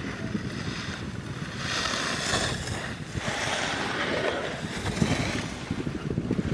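Wind buffeting the microphone on a moving chairlift: a rough low rumble throughout, with a higher hiss swelling up about two seconds in.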